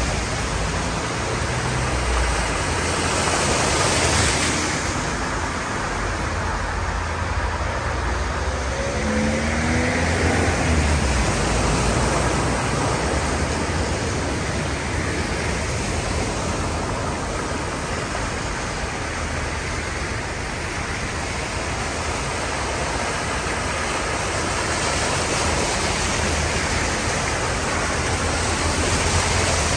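Cars and vans driving through floodwater covering a road, their tyres sloshing and throwing up spray over the engine noise. The splashing swells several times as each vehicle passes close by.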